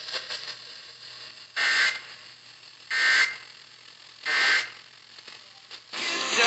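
Three short buzzy data bursts of EAS/SAME digital code from a NOAA Weather Radio broadcast, a little over a second apart, with radio hiss between them. Coming straight after the warning's spoken text, they are the end-of-message (EOM) codes that close the tornado warning.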